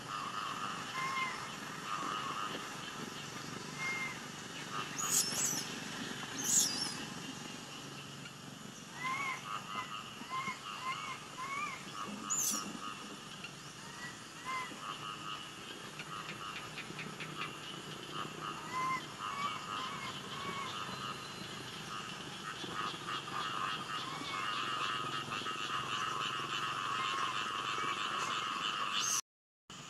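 A steady, finely pulsing chorus of small calling animals, with scattered short arched chirps and a few brief high chirps over it. The sound cuts out for a moment near the end.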